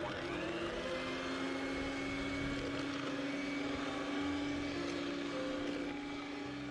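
Electric hand mixer switched on, its motor spinning up quickly and then running steadily while it beats cake batter. Background music plays underneath.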